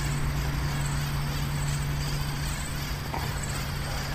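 Spinning reel being cranked steadily as line is retrieved, giving a steady low whir from its gears, with a faint click about three seconds in.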